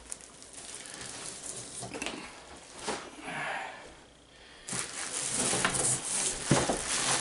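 Plastic wrapping rustling and crinkling as drum heads and parts are handled in a cardboard box, with a few light knocks. The rustling grows louder and busier from about five seconds in.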